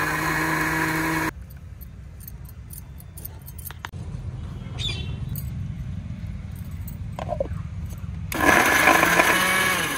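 Electric mixer-grinder motor running in a short burst, then light clicks and rustling as radish leaves go into its steel jar. Near the end the motor starts again, its whine rising as it speeds up, grinding the leaves into chutney paste.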